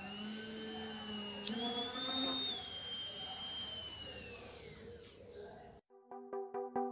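Small brushless outrunner motor, driven through an electronic speed controller, spinning with a high-pitched whine that rises and then falls away, stopping about five seconds in. Electronic music with a quick steady beat starts near the end.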